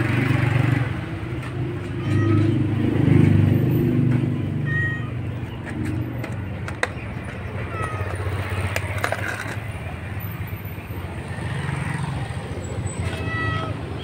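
A tabby cat gives a short, soft meow near the end over a steady low rumble of traffic, which is loudest in the first few seconds. A few brief high chirps come in between.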